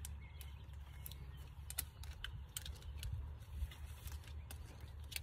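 Scattered light clicks and creaks of a string trimmer's line head being handled while its trimmer line is changed, over a low steady rumble.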